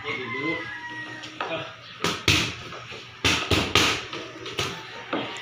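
Boxing gloves smacking focus mitts in a combination of punches: a pair of sharp smacks about two seconds in, three quick ones about a second later, then two more single hits.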